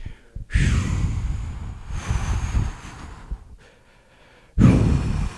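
A man breathing out hard straight into a handheld microphone, with breath blowing on the mic: one long exhale of about three seconds, then a shorter one near the end.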